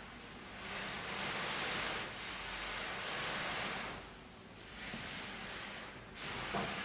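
Pleated woven cloth set with small metal plates, pushed and gathered by hand across a tabletop: swishing and rustling that swells and fades in waves, with a few small clicks near the end.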